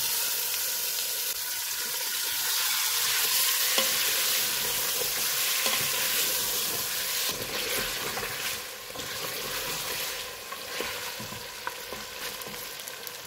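Chicken pieces frying in hot oil in a pressure cooker pot on a medium-to-high flame, a steady loud sizzle as they are stirred and browned with a wooden spoon. The sizzle eases a little after about eight seconds.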